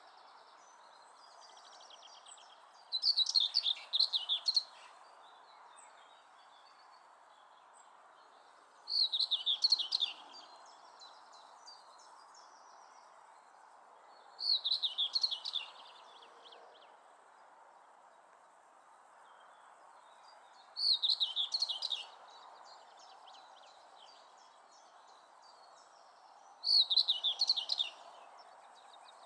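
A common whitethroat singing: five short, rapid song phrases of about a second and a half each, spaced roughly six seconds apart, over a steady faint background noise.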